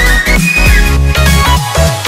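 Electronic dance music with heavy bass and a high synth melody.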